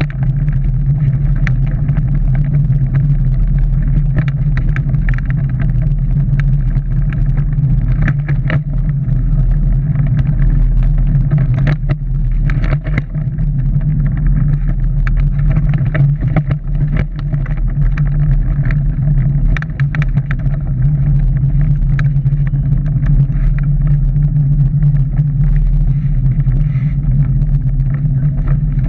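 Shell Eco-marathon prototype car driving, heard from inside its enclosed cockpit: a steady low drone from the drivetrain and tyres, with frequent rattles and knocks from the light body shell and chassis over the track surface.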